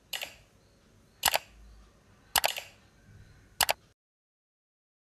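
Mouse-click sound effects: four sharp clicks about a second apart, timed to an animated cursor pressing like, subscribe and bell buttons. The sound cuts to dead silence near the end.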